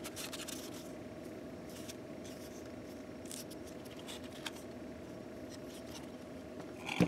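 Faint handling noise of a pleated paper oil-filter element being turned over in the hands: a few light ticks and rustles over a steady low hum, with a sharper tap near the end.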